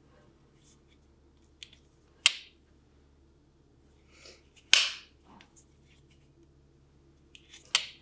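Spyderco Stretch 2 XL folding knife's lockback blade being flicked open and snapped shut: three sharp metallic clicks about two and a half seconds apart, with a few lighter ticks of handling between them.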